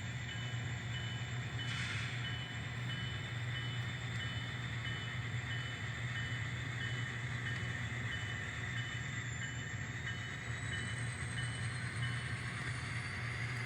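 N scale NS SD70ACe model locomotive running steadily, its sound decoder playing a diesel engine hum, with a faint high-pitched pulse repeating about twice a second.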